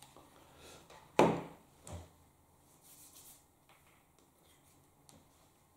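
Objects being handled and set down on a workbench: a sharp knock about a second in, a duller thud just after, then a few light clicks.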